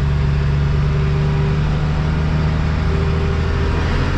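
Tractor engine running steadily under load while pulling a plough through stubble.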